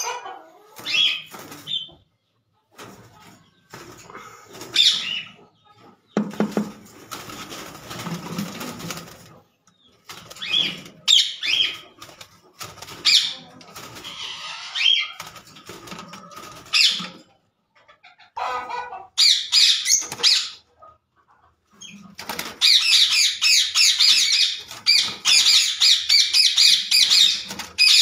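Caged green parakeets calling in short, shrill, high-pitched screeches, scattered at first with gaps between, then a dense, unbroken chatter of calls over the last quarter. A few seconds of rustling noise, such as wings and movement in the cage, come in the first third.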